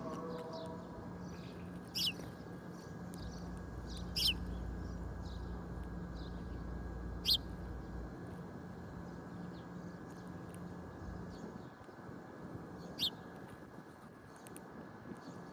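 Small birds chirping: four loud, sharp single chirps spaced several seconds apart among fainter chirps, over a steady low hum.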